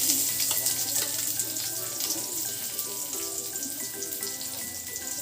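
Garlic frying in a pan with a steady sizzle, under light background music.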